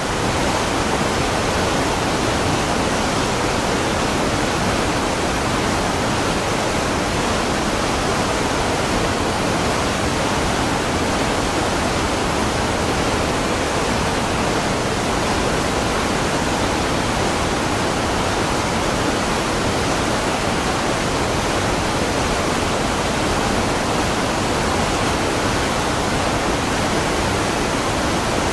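Waterfall: a steady, unbroken rush of falling water with no change in level.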